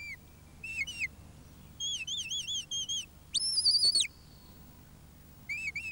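A sheepdog handler whistling commands to his working dog. First comes a rising-and-falling note, then a few quick pips, then a run of warbling notes. A long, higher note follows about halfway through, and there are short pips near the end.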